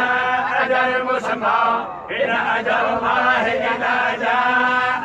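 Men's voices chanting a Quran recitation in long, held melodic phrases, with a short break for breath about two seconds in.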